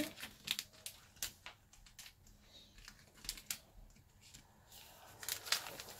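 Football trading cards being handled and slid into the plastic sleeve pockets of a card binder: irregular light clicks and rustles of card and plastic.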